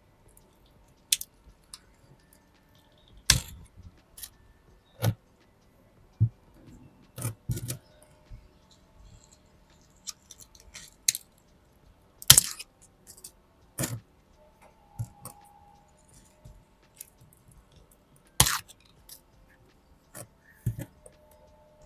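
Close-up handling of succulents and their pots: about a dozen irregular sharp clicks, taps and light knocks with quiet gaps between them.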